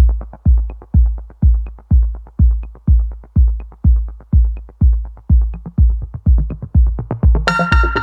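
Electronic dance music: a deep kick drum on every beat, about two a second, with light high ticks over it, and bright sustained synth chords coming in near the end.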